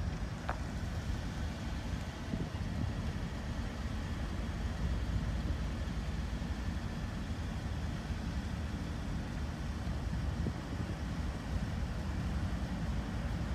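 Low, steady rumble of a GE B23-7 diesel-electric locomotive's 12-cylinder engine as it slowly approaches hauling boxcars.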